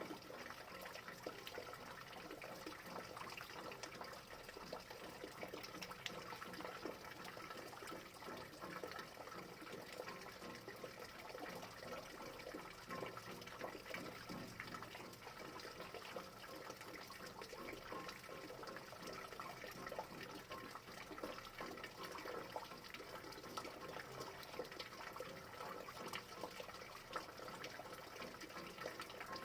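Steady rain falling: many small drop impacts over a constant wash of water noise, even throughout.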